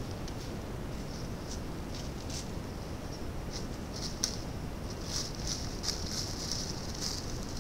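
A deer's hooves crunching and rustling through dry fallen leaves close to a trail camera: a few scattered rustles at first, then quicker and louder steps from about four seconds in as it comes nearer, over a steady low rumble and hiss.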